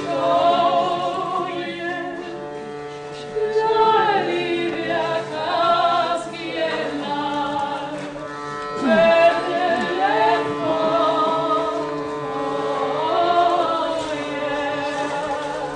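Singing voices in wavering, gliding phrases over a steady held drone of tones.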